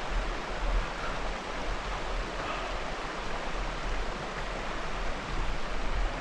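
Steady, even rushing hiss with a low rumble underneath.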